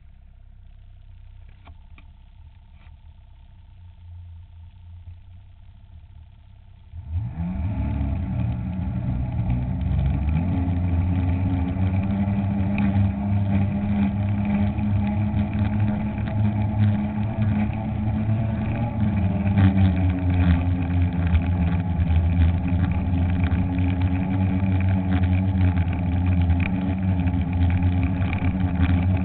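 Ski-Doo snowmobile engine idling quietly, then about seven seconds in the throttle opens and the engine rises in pitch and runs loud and steady as the sled drives through powder, with a small shift in pitch about twenty seconds in. It is heard from a camera mounted on the rear of the sled.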